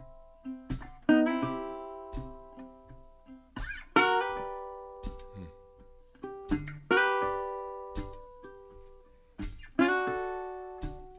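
Music without singing: a plucked acoustic string instrument strikes a chord about every three seconds and lets it ring out, with single notes picked in between.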